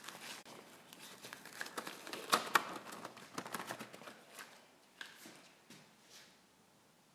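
Paintbrush scrubbing and scraping on a stretched canvas at an easel, with rustling from the gloved hand: a dense run of small scratchy scrapes and clicks. Two sharper ticks come about two and a half seconds in, and the sounds thin out over the last couple of seconds.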